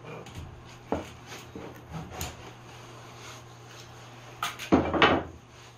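Steel nail-puller pliers and a wooden pallet board being handled on a workbench: a few light knocks, then a couple of sharp clicks and a louder scrape about five seconds in.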